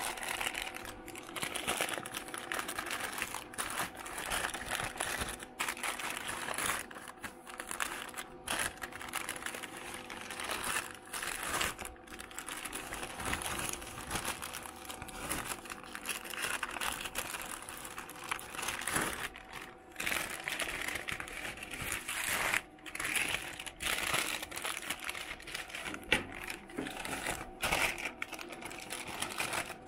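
White butcher paper crinkling and rustling continuously as a wrapped cut of meat is unwrapped by hand.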